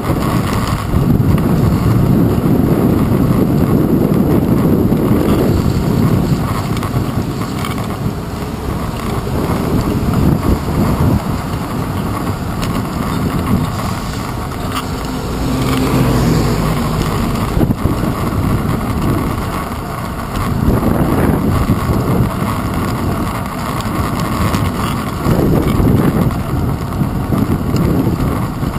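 Wind buffeting the microphone of a handlebar-mounted GoPro on a moving bicycle, a loud low rumble that swells and eases every few seconds, with road noise and city traffic around it.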